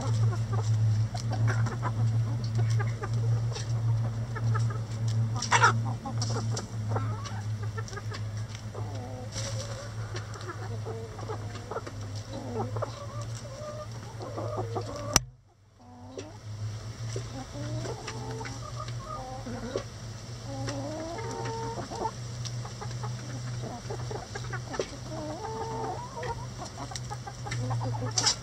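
A flock of backyard hens clucking and chattering as they peck at a hanging cabbage, with scattered sharp ticks over a steady low hum. About halfway through, a sharp click and a brief drop-out break the sound.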